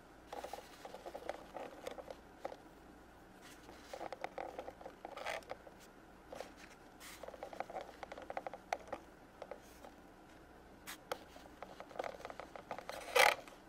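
Small plastic toy figures clicking and tapping against the plastic shelves of a toy vending machine as they are set in one by one, with a louder clack near the end.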